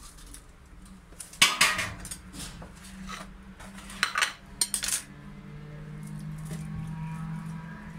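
Metal platter clattering and knocking as raw chicken pieces are tipped and scraped off it into a plastic mixing bowl: a few sharp clinks, the loudest about one and a half seconds in, more around three and four to five seconds in. A low steady hum comes in during the second half.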